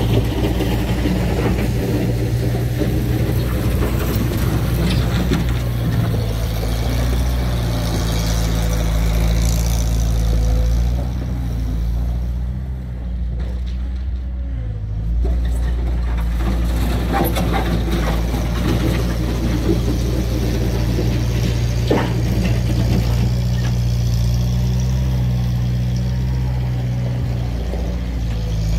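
Clark Bobcat 630 skid-steer loader's engine running steadily, its pitch stepping up and down with throttle and load and dropping quieter for a few seconds around the middle, with a few sharp knocks.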